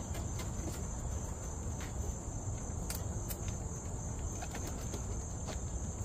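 Steady high-pitched insect chorus, one unbroken shrill drone, with a few faint clicks and knocks.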